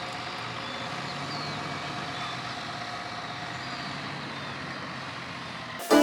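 A vehicle engine running steadily with an even hum. Banjo music cuts in suddenly just before the end.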